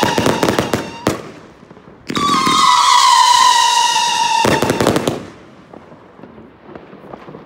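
Kingsmen Evolution 108-shot compound firework cake firing. A quick cluster of bangs and crackles opens it, then it dies away. About two seconds in, a shrill whistle goes up for a couple of seconds, dropping slightly in pitch. It gives way to another cluster of bangs and crackles that fades to quiet.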